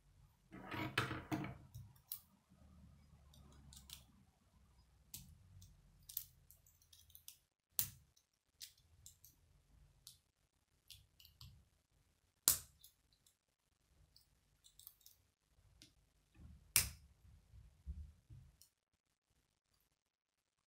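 K'nex plastic rods and connectors being handled and snapped together: a longer stretch of rattling and sliding near the start, then sharp plastic clicks every few seconds as pieces are pressed into place.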